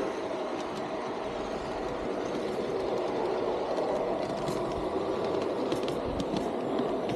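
Garden-scale model train running along its track, heard from a car it is pulling: a steady rolling rumble of wheels on the rails, with a few light clicks in the second half.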